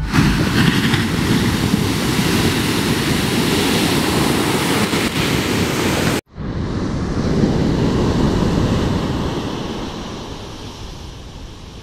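Ocean surf breaking and washing up a sandy beach, a steady rush of waves. About six seconds in it cuts out for an instant and comes back as surf with wind buffeting the microphone, growing quieter near the end.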